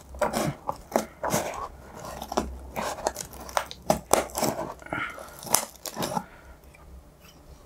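Scissors cutting through packing tape and cardboard on a parcel: a quick, irregular run of sharp crunching snips that stops about a second before the end.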